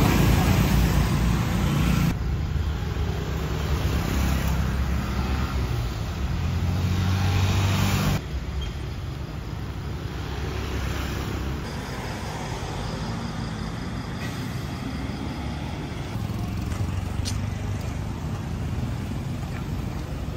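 Street traffic of motorbikes and motorbike-drawn tuk-tuks, with a car, passing close by with their engines running. The engine noise is strongest at first, then drops to a quieter, steadier traffic hum about eight seconds in.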